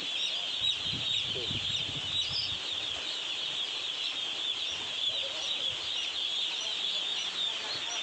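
A flock of hundreds of day-old chicks peeping all at once: a dense, continuous chorus of high-pitched cheeps.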